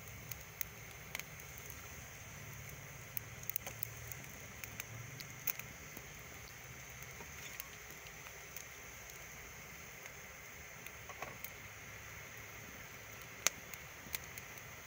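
Wood fire of split logs and twigs crackling: scattered sharp pops and snaps over a faint steady hiss, the loudest pop near the end.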